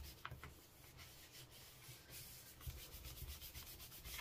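Faint rubbing of a hand over the back of card stock in repeated strokes, burnishing the card onto an inked gel printing plate so the print transfers.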